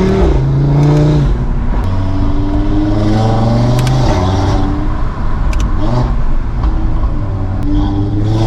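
Audi RS3's turbocharged 2.5-litre five-cylinder (DAZA engine) under hard acceleration: the revs climb and drop back several times as it shifts up through the gears, with a few sharp cracks in between.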